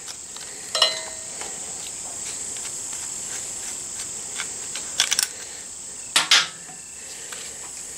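Light metallic clicks and clinks of a Honda Africa Twin's rear brake caliper and pads being handled by hand as the caliper comes off the brake disc. There are a few short clicks about a second in, a cluster around five seconds, and another just after six seconds, over a steady high-pitched tone.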